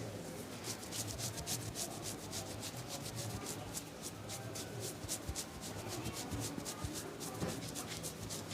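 A barber's hands rubbing quickly and rhythmically over skin and hair in a massage, about four to five strokes a second.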